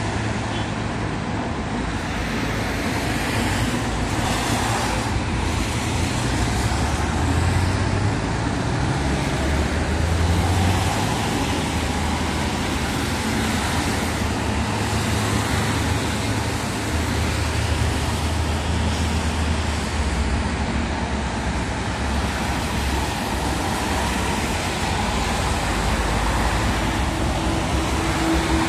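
Steady road traffic on wet streets: cars and trucks passing, with a continuous low engine rumble and a wash of tyre noise that swells as vehicles go by.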